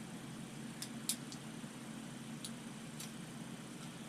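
A few light clicks and ticks from small packaging and parts being handled, over a steady low hum.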